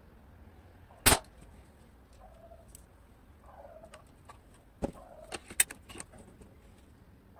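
Airsoft SVD Dragunov replica firing a single sharp shot about a second in. A few quieter clicks and knocks follow about five to six seconds in.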